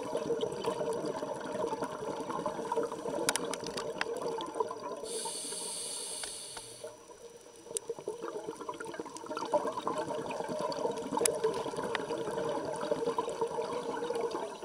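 Scuba diver breathing through a regulator underwater: a long stream of exhaled bubbles, a brief hissing inhale about five seconds in, then another long stream of bubbles from about eight seconds on.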